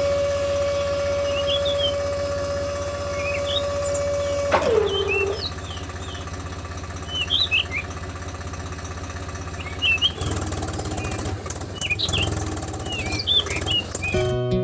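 Birds chirping repeatedly over a steady low engine-like hum. A steady whine runs under them and stops about four and a half seconds in, its pitch falling as it ends.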